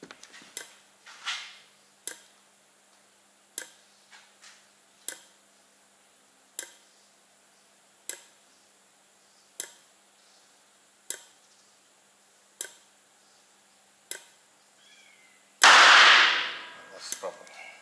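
Sharp clicks from an Arduino-timed solenoid fuel valve and spark ignition, pulsing steadily about every second and a half. Near the end a loud bang as the hydrogen-oxygen (HHO) gas detonates back into its gas balloon: a flashback.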